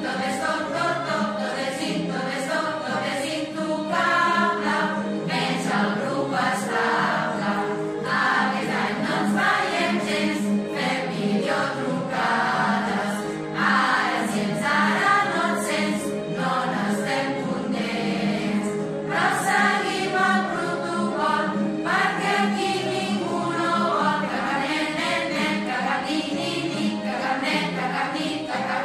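A choir singing a Christmas song together over musical accompaniment.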